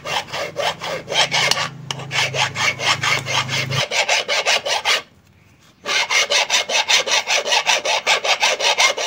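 Hand file rasping back and forth on the splined steel shaft of a replacement washing-machine gearbox, in quick short strokes of about five a second, with a short pause about five seconds in. The shaft is slightly too thick and is being filed down so that it will slide into place.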